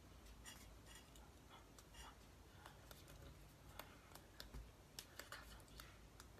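Near silence with faint, scattered soft clicks and taps of hands meeting and brushing against each other while signing in ASL.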